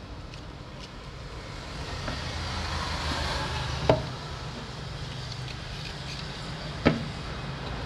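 Road traffic: a car passing, its noise swelling up and fading around the middle over a steady low traffic hum. Two sharp clicks, about four and seven seconds in, from small parts and a screwdriver being handled on the grinder.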